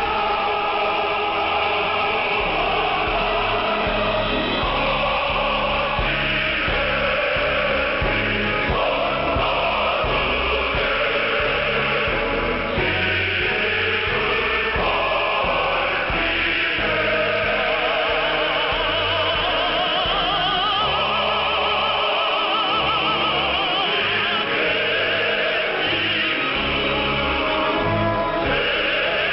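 Music with singing in an operatic style, the sung notes wavering with vibrato, played over a shortwave radio broadcast. It sounds narrow and muffled, with nothing above about 5 kHz.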